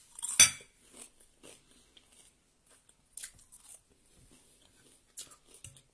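Close-miked eating: a sharp click about half a second in as a spoonful of fried rice goes into the mouth, then quiet chewing with a few faint crunches.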